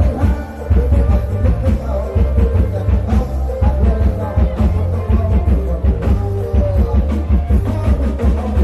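Isan rock band playing loudly from a rot hae sound truck, with heavy bass and a pounding drum kit, picked up by the camera microphone.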